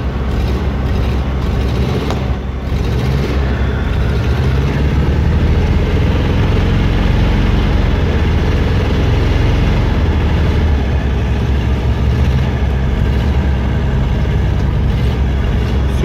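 Off-road vehicle's engine idling steadily, heard from inside the cabin.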